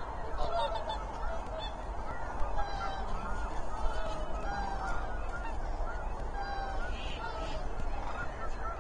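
A large flock of common cranes calling, with many overlapping trumpeting calls rising and falling without a break.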